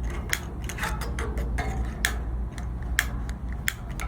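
Lighter clicked over and over, an irregular run of sharp clicks about twice a second, held in a Blackstone griddle's burner lighting hole to light the propane flowing to the burner.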